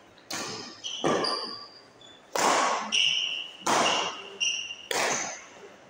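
Badminton rally: sharp racket strikes on the shuttlecock about once a second, each ringing in the hall, with short high squeaks of shoes on the court floor between the hits.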